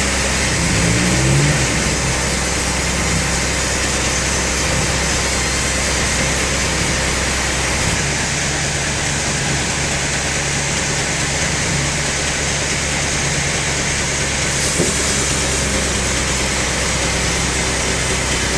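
Band sawmill machinery running with a steady, loud drone. The high hiss drops away for several seconds in the middle, then returns.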